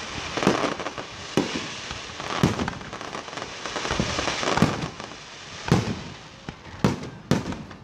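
Aerial fireworks shells bursting, with a sharp bang roughly every second over a continuous crackle and fizz from the burning stars.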